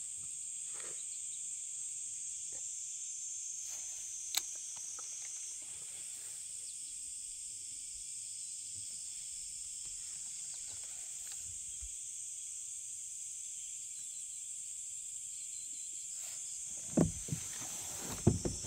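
Steady, high-pitched chorus of insects, with a single click about four seconds in and a few knocks near the end.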